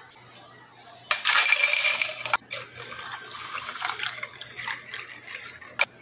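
A glass being filled with water: a loud splashing hiss about a second in, lasting about a second, then quieter, uneven liquid sounds, and a sharp click near the end.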